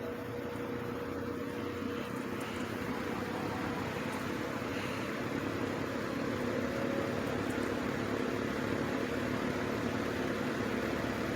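1950s Wizard reversible box fan running in reverse on low speed: a steady rush of air over a motor hum, slowly getting a little louder over the first several seconds.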